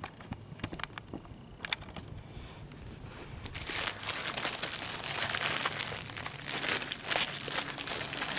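Thin plastic wrapping on a roll of paper towels crinkling under hands, with a few scattered crackles at first, then steady, denser crinkling from about three and a half seconds in as the wrapper is pinched and worked.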